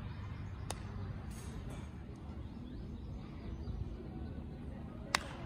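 Open-air ballfield ambience with one sharp crack of a baseball impact at home plate near the end, and a fainter click about a second in.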